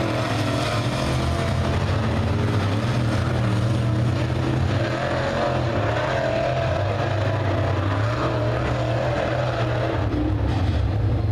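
Several dirt-track crate race cars with GM 602 crate V8 engines running laps around the oval together. Their engine notes overlap and rise and fall in pitch as the cars go round.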